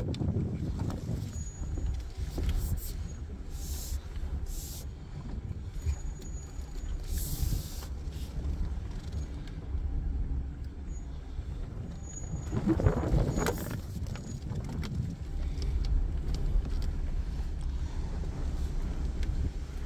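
Off-road vehicle crawling along a rough dirt trail, heard from inside the cabin: a steady low rumble of engine and tyres on dirt, with a louder stretch about two-thirds of the way through.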